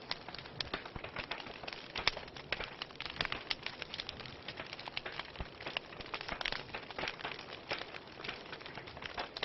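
Wood fire burning in a fireplace, crackling with many irregular pops and snaps of varying strength over a soft steady hiss.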